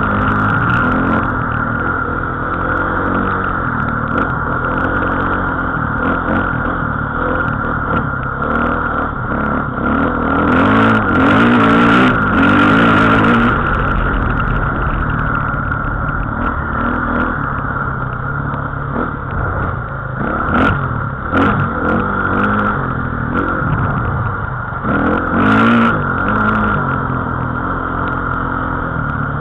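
Small off-road vehicle engine running on the move, its pitch stepping up and down with throttle and gear changes. The engine gets louder for a couple of seconds about eleven seconds in, and briefly again near the end.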